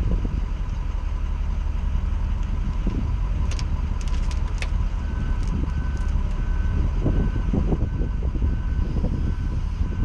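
Wheel loader's diesel engine running as its forks lift a car, with a few sharp metal clanks a few seconds in. A backup alarm starts beeping steadily about halfway through.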